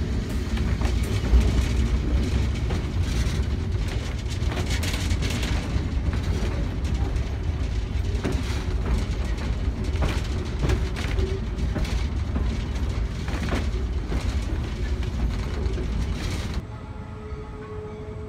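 Passenger train rolling over jointed track, heard on board: a steady heavy rumble with irregular clicks and clunks of the steel wheels. Near the end it cuts to a quieter steady pitched hum.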